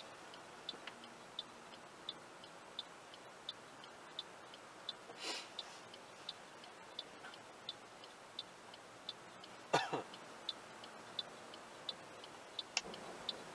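A car's turn-signal indicator ticking steadily in the cabin, about three clicks every two seconds, with the left turn signalled while the car waits at the light. Two short louder noises break in, about five and ten seconds in.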